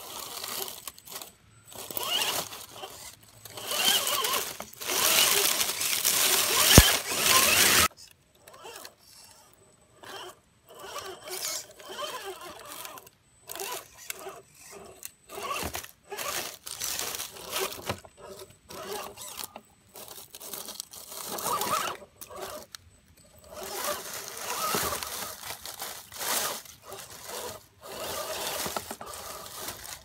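RC4WD Trailfinder 2 scale Jeep crawler driving over rocks and dry leaf litter: irregular crunching and crackling of leaves and grit under its tyres, with a small electric motor whirring. A louder, denser stretch of crunching comes about four to eight seconds in, with a sharp click near its end.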